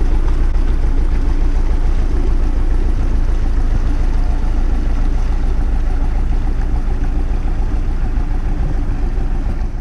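Canal boat's engine running steadily as the boat gets under way, with a strong, even low rumble.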